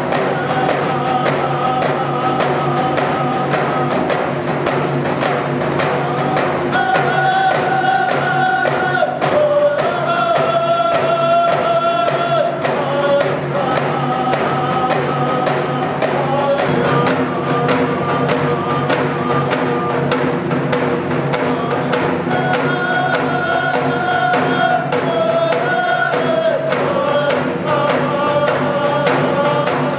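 Music: voices singing long held notes that step to a new pitch every few seconds, over a steady drone and a quick, even beat.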